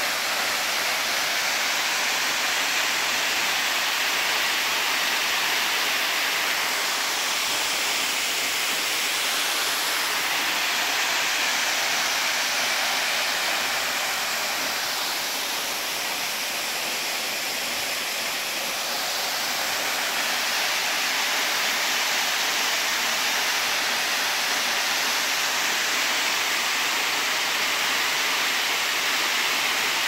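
Waterfall pouring into a rocky plunge pool: a steady rushing of water, easing a little for a few seconds about halfway through.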